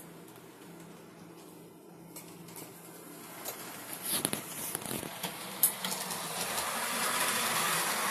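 A model class 56 diesel locomotive running along the layout track, its small electric motor and wheels whirring and getting louder as it comes closer. A few clicks come in the middle.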